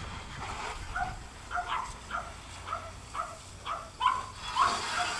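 A dog barking over and over, about two short barks a second.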